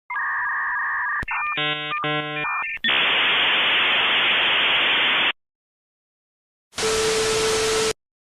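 Telephone-line electronic sounds like a dial-up modem connecting: a steady pair of tones, quickly switching beeping tones, then about two and a half seconds of even, phone-line-limited hiss that cuts off suddenly. After a gap comes a second burst of static with a steady tone, about a second long.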